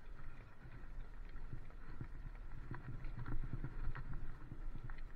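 Bicycle riding on tarmac, heard through a bike-mounted camera: a steady low rumble of wind and tyres, with frequent small knocks and rattles.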